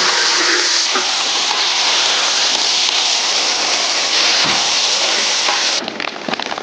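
Loud, steady sizzling of a wok stir-fry of shrimp and chicken wings frying hard just after soy sauce goes in. The sizzle cuts off suddenly near the end.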